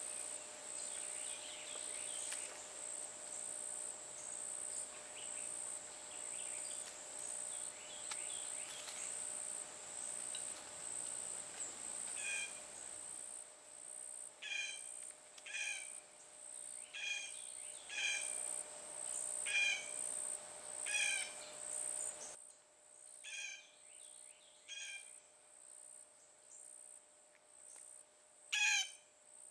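A steady, high-pitched pulsing insect chorus, with a bird repeating a short harsh call about every second and a half from about halfway through.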